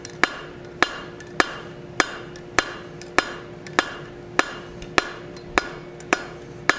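Blacksmith's hand hammer striking a red-hot steel bar on the anvil horn in an even rhythm, a blow a little more than every half-second, about twelve blows, texturing the bar into a lumpy leaf stem with a quarter to eighth turn between blows. A faint steady hum runs underneath.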